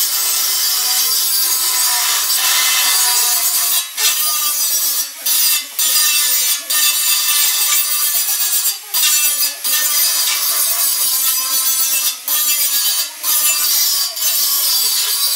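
Handheld angle grinder grinding down a welded sheet-steel rust repair panel: a steady, high, rasping grind broken by about ten brief dips.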